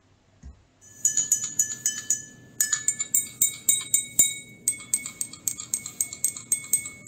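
Three drinking glasses holding different amounts of water are tapped quickly with a wooden stick below the water line, about four clinks a second starting about a second in. Each clink is a short ring, and the pitch differs from glass to glass with the amount of water in it.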